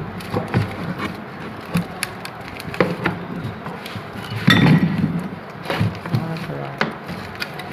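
Scattered knocks and clicks of handling, with a louder clatter about halfway through.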